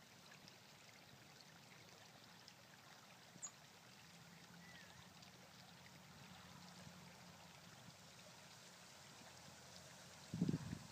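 Near silence: a faint steady outdoor hiss, with a few low thumps near the end.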